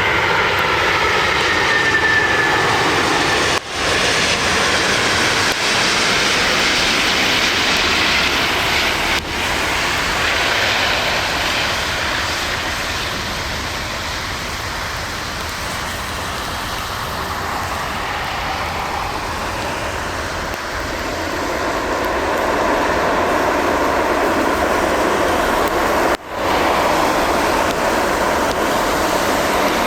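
Heavy typhoon rain pouring down: a loud, dense, steady rush, cutting out for a moment about 4, 9 and 26 seconds in.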